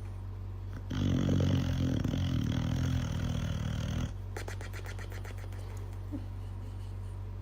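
A dog making a loud, rough, pitched sound for about three seconds, starting about a second in and cutting off abruptly, over a steady low hum.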